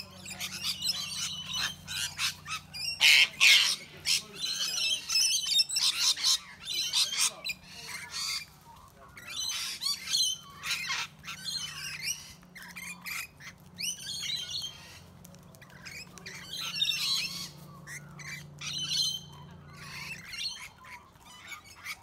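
A mixed flock of sulphur-crested cockatoos and rainbow lorikeets squawking, with repeated harsh screeching calls that are loudest about three seconds in.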